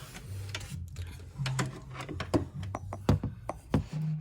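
Plastic clicks and knocks of an HDMI plug being pushed into a monitor's port and handled: a run of short, sharp clicks in the second half, over a low hum.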